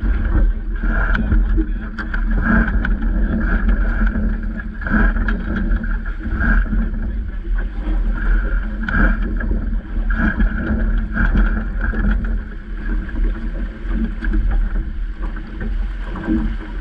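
A Vaucluse Junior sailing dinghy under way with its spinnaker up: water rushes and splashes along the hull, with small irregular knocks. Gusty wind buffets the microphone throughout, giving a heavy low rumble.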